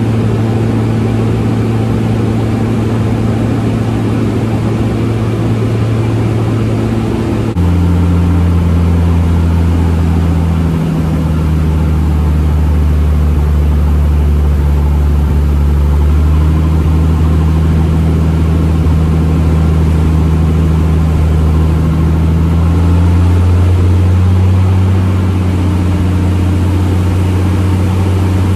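Light aircraft's piston engine and propeller droning steadily, heard inside the cockpit. About a quarter of the way through, the note steps lower and gets louder, then shifts slightly again later on.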